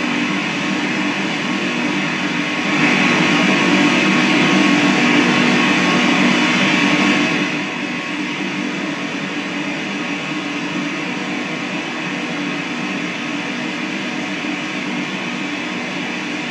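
Steady, dense hiss with a low hum from an ITC portal, a noise-generating device run during a spirit-communication session to listen for voices. It starts abruptly, grows louder from about three seconds in, and falls back to a steady level about halfway through.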